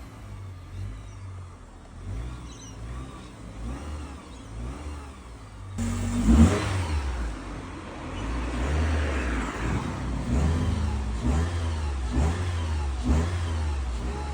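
2011 Mitsubishi Lancer engine coming to life after a crank-no-start caused by fuel-washed cylinders. It turns over more quietly at first, fires up loudly about six seconds in, then runs with repeated revs.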